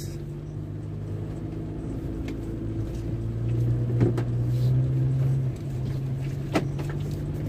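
Car engine running steadily, heard from inside the cabin: a low hum that grows louder, then drops back about two-thirds of the way through. Two short knocks come partway through.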